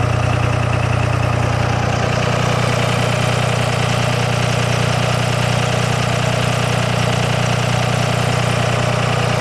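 Second-generation 5.9 Cummins 24-valve inline-six diesel idling steadily, heard at the exhaust tip, with no change in engine speed.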